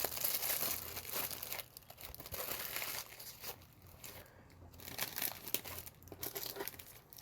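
Plastic packaging crinkling and tearing as it is handled, in irregular bursts with short pauses.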